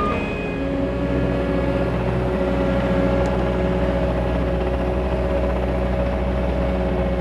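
Cat 289D3 compact track loader's diesel engine running steadily, with a steady whine held above the engine note.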